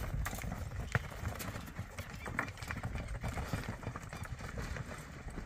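Hooves of several ridden horses moving over a dirt corral: irregular hoofbeats, with one sharper knock about a second in.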